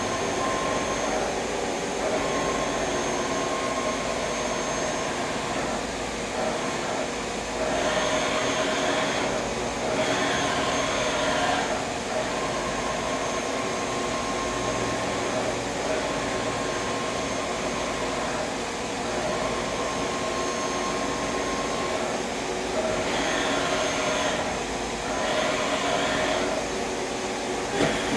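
Hardinge VMC800II vertical machining center running under power: a steady mechanical whirr with a few thin whining tones over it. Two pairs of short, louder hissing stretches come about eight seconds in and again near the end.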